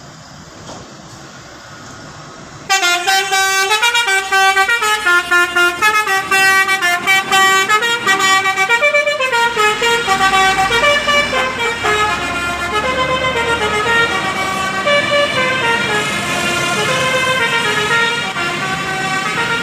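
A bus's multi-tone 'basuri' telolet air horn playing a loud, fast stepping melody, starting suddenly about three seconds in and carrying on without a break.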